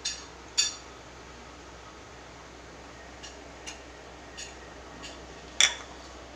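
Sharp metallic clinks of cookware at the stove: two near the start about half a second apart, several lighter ones, and the loudest near the end, over a steady low hiss.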